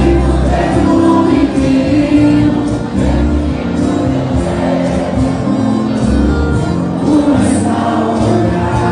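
Live band music with singing, from a stage band of accordion, acoustic guitars and drums.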